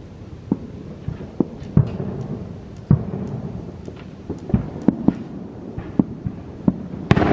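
Scattered firework pops and crackles at irregular intervals over a low rumble. Near the end there is a sharp crack, and a ground fountain firework catches and starts to hiss.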